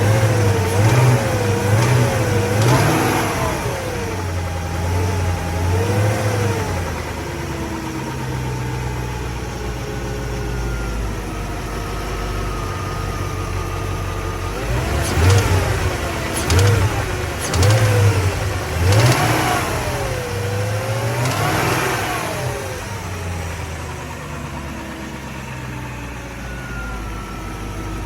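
BMW E38 engine idling and being blipped: a few quick revs that rise and fall back at the start, a long steady idle, then another run of revs about halfway through before settling to idle again. The owner suspects lifter noise, a very faint sound he says shows up as the revs drop.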